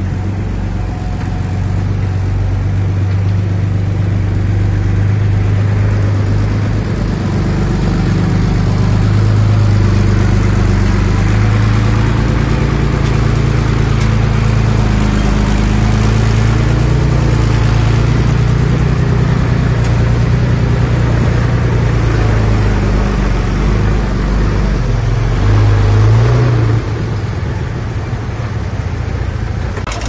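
Bulldozer's diesel engine working under load, its low drone rising and falling in pitch as the throttle changes. It drops in level near the end.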